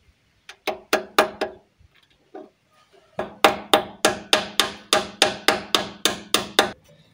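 Hand hammer tapping on metal with a short ring after each blow: four taps about a second in, then a quicker run of about four taps a second for three and a half seconds.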